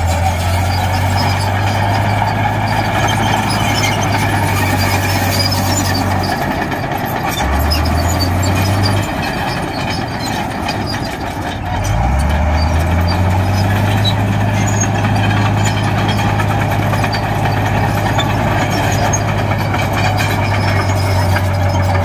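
Heavy diesel engine of earthmoving machinery running hard. The engine note falls away about six seconds in, returns briefly, then drops back. About twelve seconds in it revs up with a rising note and holds steady under load.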